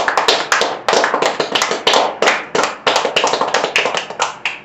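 Hand clapping: a fast, loud run of claps, several a second and overlapping, that stops suddenly at the end.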